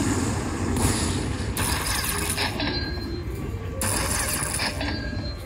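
Lightning Cash Best Bet slot machine playing its win rollup effects as the credit meter counts up the bonus win, a run of rattling, coin-like noise that stops and starts.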